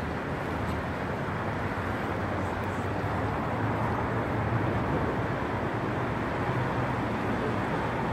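Steady rumble of city traffic, an even noise with a low hum and no distinct events.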